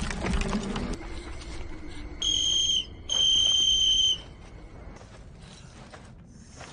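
Two long blasts of a whistle on one steady high note, the first about half a second, the second about a second long.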